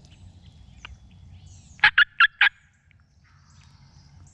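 Four loud turkey yelps in quick succession, each note about a fifth of a second apart.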